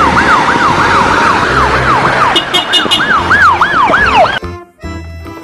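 Ambulance siren sounding a fast, repeating wail that sweeps down in pitch about three times a second, with a few short higher beeps about two and a half seconds in. It cuts off suddenly a little over four seconds in, and music takes over.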